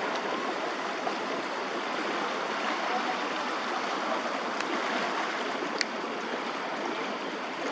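Floodwater rushing steadily, a continuous even noise.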